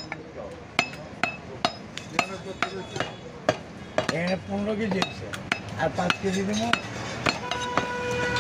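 Steel meat cleaver knocking against a wooden stump chopping block as beef is sliced: irregular sharp knocks, roughly two a second, with a voice in the background and a steady horn-like tone coming in near the end.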